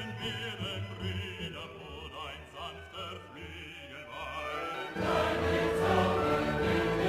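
Background music with a wavering melody; about five seconds in it switches to a louder, fuller section.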